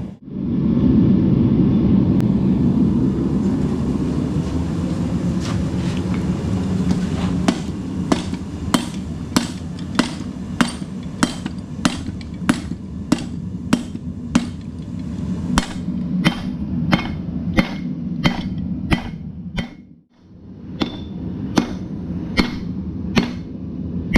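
Blacksmith's hammer striking metal on an anvil in a steady rhythm, about three blows every two seconds, starting several seconds in. The blows fall over a steady low roar, with a brief break near the end.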